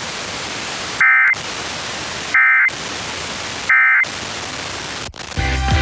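Emergency Alert System end-of-message data bursts: three short, loud, buzzy digital tone bursts about a second and a half apart, marking the close of the alert. A steady radio hiss fills the gaps between them, and the station's music comes back in near the end.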